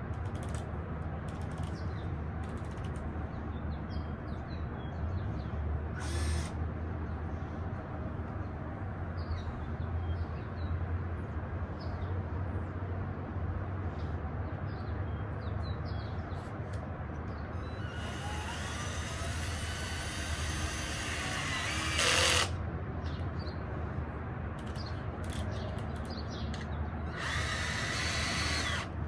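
Cordless drill running into pine 2x4 boards in bursts: a short one about six seconds in, a long one of about four seconds past the middle with its pitch rising, and another of about two seconds near the end. Small birds chirp over a steady low hum.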